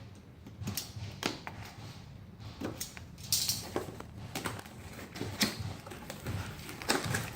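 Laptop packaging being handled by hand: irregular clicks, taps and light rustles, a few a second.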